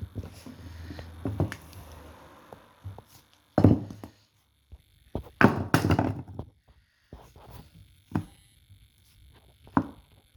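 Modelling clay being worked by hand tools on a hard surface: a series of dull thunks, with the loudest cluster around the middle, over soft rustling in the first two seconds.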